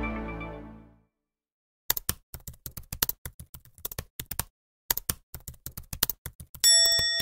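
The last chord of an intro jingle fades out over the first second. Then a typing sound effect plays, rapid keyboard-like clicks in two runs with a short pause between. A bell-like ding rings near the end.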